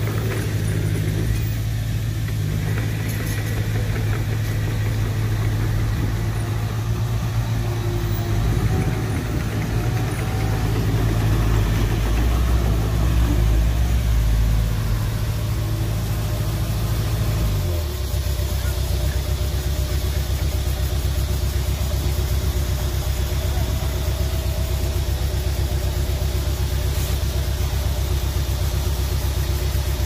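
Heavy diesel engine of earthmoving machinery running steadily; about two-thirds of the way through its note drops abruptly to a lower, steady pitch as the engine slows.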